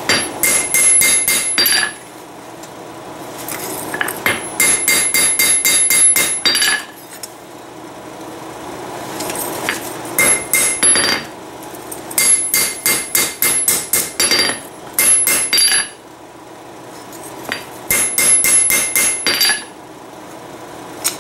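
Blacksmith's hammer striking a hot file blade on a steel anvil, in quick runs of blows at about five a second, separated by pauses of a second or two. Each blow rings the anvil.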